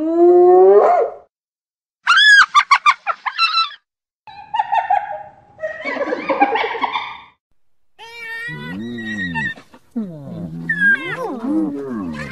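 Spotted hyenas calling: a rising whoop in the first second, then a rapid run of short high giggling notes about two seconds in. Rougher, lower calls follow, and near the end a string of calls that rise and fall in pitch.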